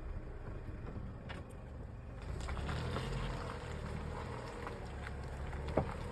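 Chevrolet Lacetti with a low steady rumble, and a single dull knock near the end: the kind of knock heard when the steering wheel is turned or the car pulls away uphill, its cause unknown to the owner.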